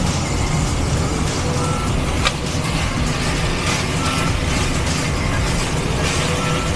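Sliced pork belly sizzling steadily as it browns in oil in a cast iron pot, with one sharp clink of a utensil against the pot about two seconds in.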